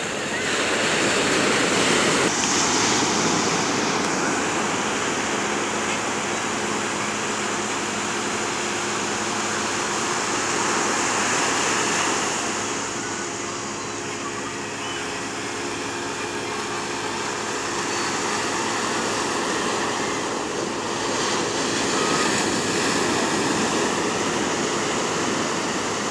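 Ocean surf breaking and washing up the beach, a steady rushing that swells and eases every few seconds.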